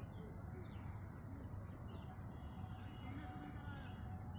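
Small birds chirping, many short quick calls a few each second, over a steady low background rumble.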